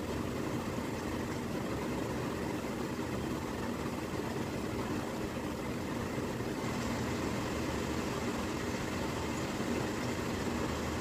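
A steady mechanical hum with faint even tones in it, unchanging and without breaks.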